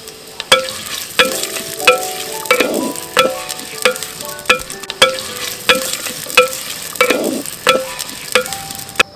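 A metal spatula stirring food that is frying and sizzling in a pan, clanking against the pan with a short ring about three times every two seconds.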